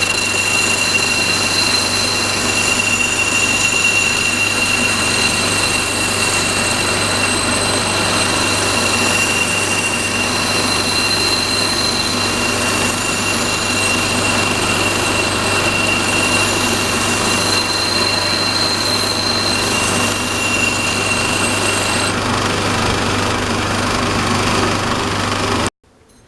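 Vertical grinder running with a steady hum and a high whine as a hand-forged steel axe head is ground against it to put an edge on it. The whine drops out a few seconds before the end, and the sound cuts off abruptly just before the end.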